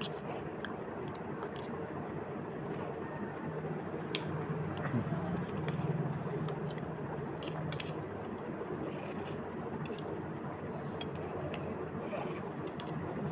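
A man eating from a steel plate: a spoon scraping and clicking against the plate, and chewing, with scattered small clicks over a steady background noise.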